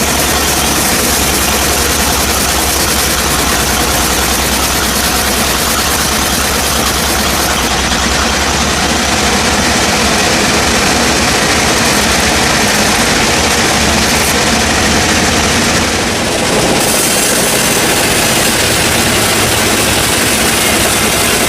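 Sawmill machinery running, its saw cutting wood: a loud, steady mechanical noise, with a brief dip about sixteen seconds in.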